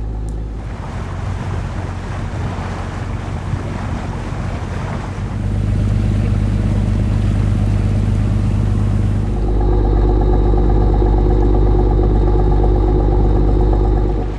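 Steady low drone of a ship's engine under way, with wind on the microphone and water noise. About nine seconds in it grows louder and a steady hum with several held tones comes in.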